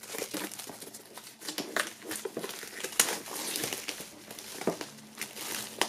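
Plastic shrink-wrap film being peeled off a cardboard album box, crinkling and crackling unevenly, with a few sharper snaps.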